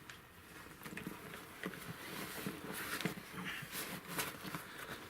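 Faint irregular rustling with scattered light clicks and knocks, the kind made by handling gear or moving about.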